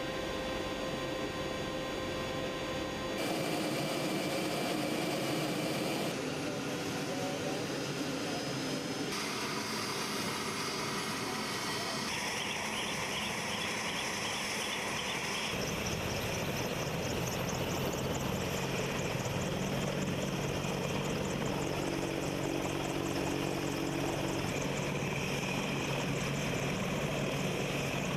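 AH-64 Apache attack helicopter running on the ground: steady noise from its twin turboshaft engines and turning rotors. The sound changes abruptly every few seconds, and in the second half settles into a steady low hum with a fast, even flutter above it.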